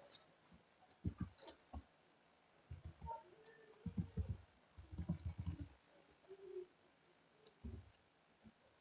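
Faint scattered clicks and light taps in small groups, densest in the middle: someone working a computer's mouse and keys.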